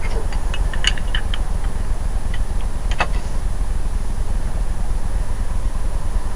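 Small metal clicks and ticks as utility-knife blades and thin metal shims are handled and knocked against the glass edge of a sealed double-pane window being pried apart: a quick scatter in the first second and a half and one sharper click about three seconds in. A steady low rumble runs underneath.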